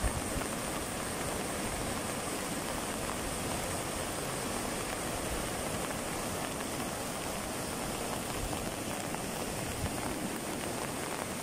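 Floodwater rushing across a submerged road: a steady, even rushing noise.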